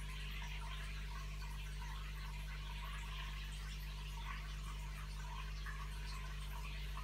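Steady trickling and bubbling of aquarium water over a low, constant hum, as from the tank's filter running.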